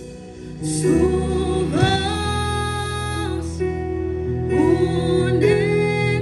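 Christian worship music: a sung melody with long held notes over sustained accompaniment. It swells louder about two-thirds of a second in.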